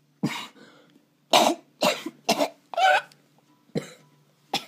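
A boy coughing in a fit: about seven short, harsh coughs at uneven intervals.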